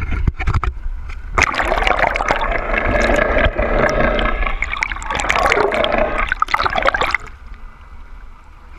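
Water splashing and then rushing and gurgling loudly around a camera dipped under the surface beside a moving boat; the rush cuts off sharply about seven seconds in, leaving a softer wash of water.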